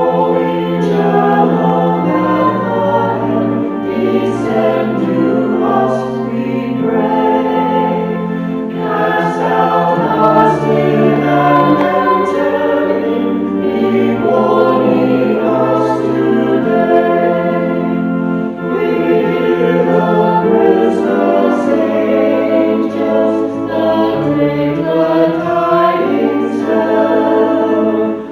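A choir singing a Christmas carol in harmony, with long held chords that change every second or two.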